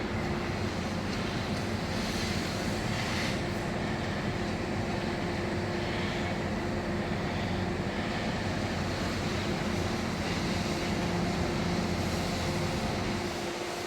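Demolition machinery at work: the steady diesel drone of heavy plant such as an excavator, with a constant engine hum underneath.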